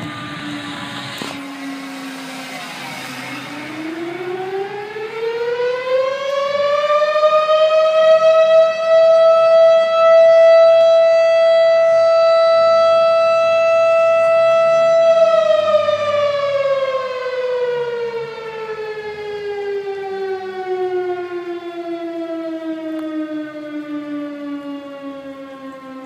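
Federal Signal fire siren: the tail of one wail falls, then about three seconds in the siren winds up to a high, steady tone. It holds that tone for about seven seconds, then winds down slowly.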